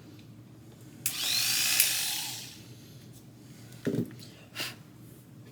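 A short hiss of about a second and a half that fades away, followed by a knock and a smaller click as the freshly sharpened clipper blades are handled at the bench.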